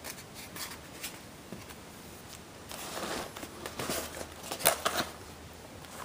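Handling noise from the drone's foam hull being moved about by hand: soft rustling, then a few light knocks and clicks between about three and five seconds in.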